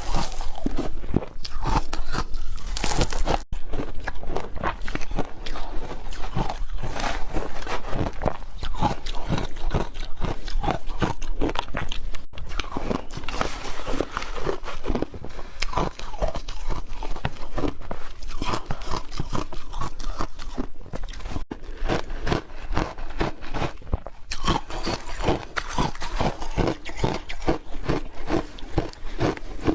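A person biting and chewing crunchy food, a dense, continuous run of crisp crunches.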